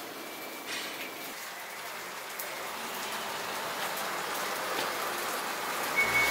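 Steady sizzling hiss from a takoyaki griddle, with a few light clicks, growing a little louder toward the end.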